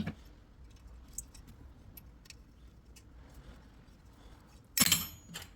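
A few faint small clicks of metal parts being handled, then a short loud metallic scrape and clatter near the end as the baffle tube is worked into the exhaust silencer.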